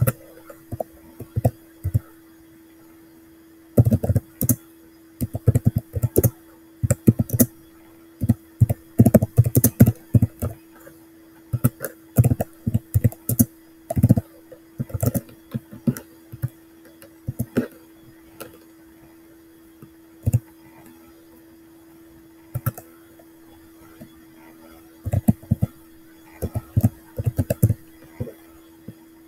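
Computer keyboard being typed on: runs of quick keystroke clicks with pauses between them, over a faint steady hum.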